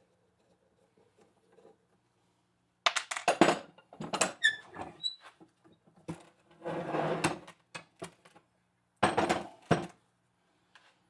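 Metal parts of a drill press being worked loose and handled during teardown. About three seconds in come clatters and knocks with a few short squeaks, then a scraping rub, then another burst of knocks near the end.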